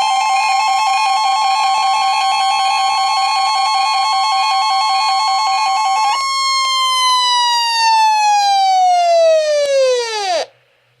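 NOAA Weather Radio warning alarm tone (1050 Hz) sounding for the weekly tone alarm test: a loud steady tone with a second tone switching back and forth beneath it. About six seconds in, the second tone stops and the pitch slides steadily down until the sound cuts off shortly before the end.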